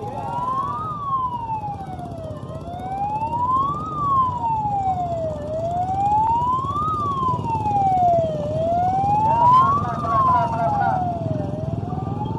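Electronic siren wailing in a slow rise and fall, about once every three seconds, over the low rumble of motorbike engines.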